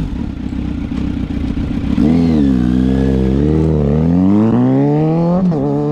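Kawasaki Z900's inline-four engine and exhaust: a steady low rumble, then about two seconds in the revs pick up, waver, climb to a peak, drop sharply near the end and start climbing again.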